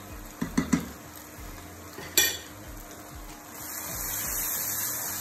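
Spice powders and onion-tomato masala sizzling in hot oil in a steel frying pan as they are stirred in, the sizzle growing louder from about three and a half seconds in. A metal spoon clinks a few times near the start and once, sharply, about two seconds in.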